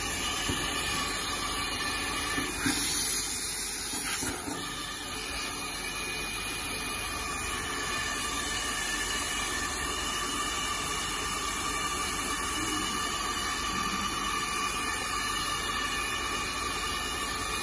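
Steady hiss of the S350 hot-air seam sealing machine's hot-air blower running continuously, with faint steady whining tones over it.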